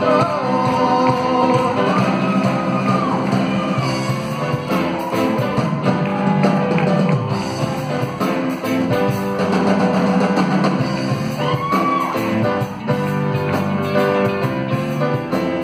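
Live rock band playing a cover song on stage: electric guitars, bass, keyboards and drum kit, with a lead singer's held, gliding notes over the top.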